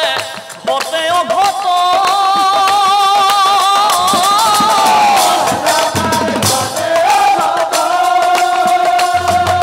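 A male voice sings long, wavering held notes in two drawn-out phrases, one in the first half and one in the second, over percussion accompaniment.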